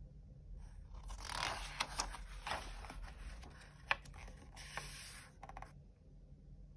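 Paper pages of a picture book turned and smoothed by hand: a soft rustling and sliding of paper, with a few sharp crackles, starting about a second in and stopping near the end.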